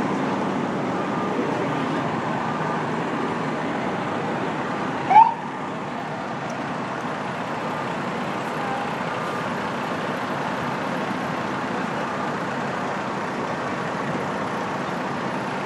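Fire trucks' engines running steadily amid street traffic. About five seconds in, one brief rising siren whoop is the loudest sound.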